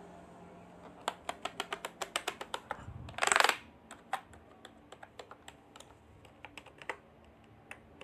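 Keys of a Mofii 666 wireless keyboard with round typewriter-style keycaps being pressed by a finger: first a quick run of clicks, about seven a second, then slower scattered clicks. About three seconds in, a short, louder burst of rushing noise breaks in.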